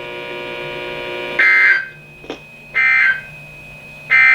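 Emergency Alert System end-of-message data bursts from a NOAA Weather Radio broadcast: three short buzzing bursts of digital two-tone data, about 1.4 s apart, marking the end of the warning. They are preceded by a steady radio hum.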